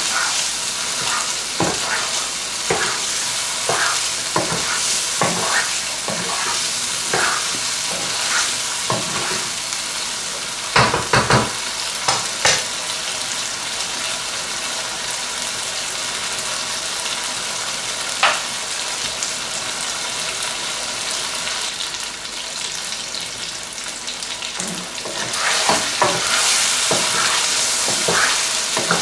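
Chicken pieces sizzling as they fry in sauce in a nonstick wok, with a wooden spoon stirring and knocking against the pan. The stirring knocks come thick and fast at first, fall off in the middle while the frying hisses on, and pick up again near the end.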